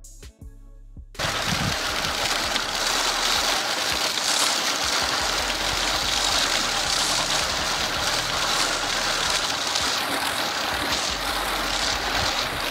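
Scotts Elite broadcast spreader pushed across grass: the wheels, gearbox and spinning impeller flinging small sulfate of potash prills, a steady rushing clatter that starts abruptly about a second in, after a moment of music.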